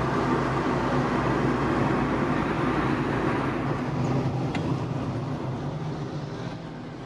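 Car engine and road noise heard from inside the cabin while driving, a steady hum that fades out over the last few seconds.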